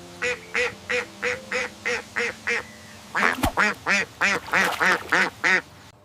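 Duck quacking in two quick runs of short quacks, about three a second. The second run starts about three seconds in and is louder.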